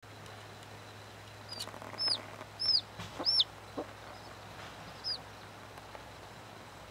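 Baby chick peeping: five short, high peeps, each rising then dropping in pitch, spread over a few seconds, with a couple of lower, softer clucking notes among them.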